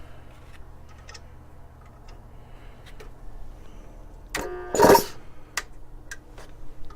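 Tuxing high-pressure PCP air compressor running with a steady low hum amid scattered clicks. About four and a half seconds in there is a short pitched squeal, then a brief loud burst of noise.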